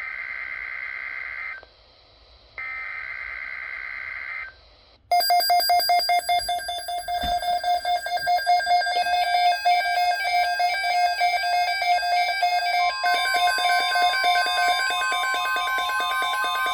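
Two buzzy bursts of EAS SAME header data tones open an emergency alert. From about five seconds a loud electronic alarm of rapidly repeating, many-pitched beeps starts. A steady single high tone joins it near thirteen seconds, like the 1050 Hz NOAA Weather Radio warning alarm.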